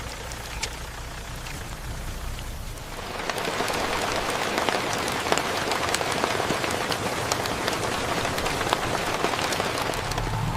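Rain falling steadily with many small drop ticks. It gets louder and denser about three seconds in.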